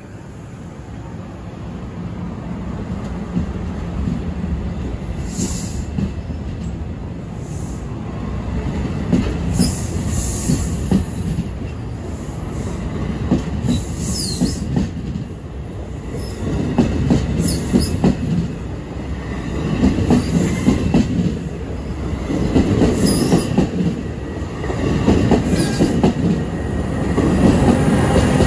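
NJ Transit bi-level commuter train rolling past, steel wheels clicking over the rail joints with several brief high wheel squeals. It grows louder throughout as the locomotive at the rear draws near.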